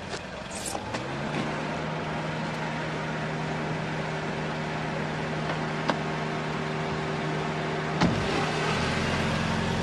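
A car engine running steadily at idle. A sharp click comes about eight seconds in, and then the engine note changes and deepens.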